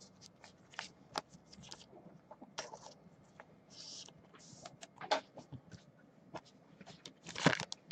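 Trading cards being handled at a table: quiet, irregular small clicks and taps with a few brief plastic rustles, such as cards slid into sleeves and holders.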